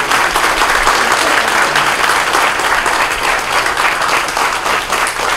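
A crowd applauding: many hands clapping steadily.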